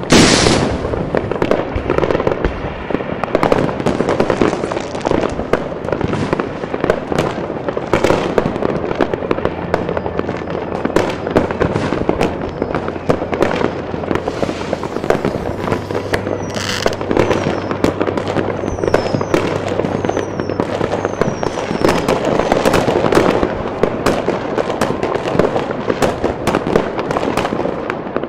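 Many fireworks and firecrackers going off at once across a neighbourhood: a continuous barrage of bangs, pops and crackle. A few short falling whistles come about two-thirds of the way through.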